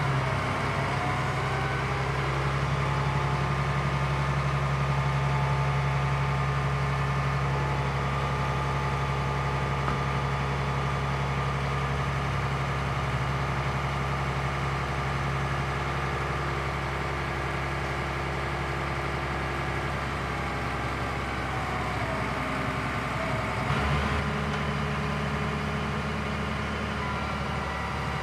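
Scania G 82 M ladder truck's diesel engine running steadily while the aerial ladder is raised, with a higher whine that glides down in pitch near the start and again a little past two-thirds through, and a shift in the engine note near the end.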